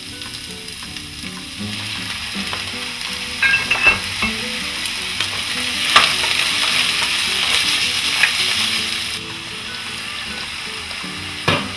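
Sliced carrots sizzling in hot oil in a nonstick frying pan, stirred with a wooden spatula. The sizzle swells a couple of seconds in and eases off near the end, with a few sharp clicks of the spatula and a pair of louder knocks against the pan near the end.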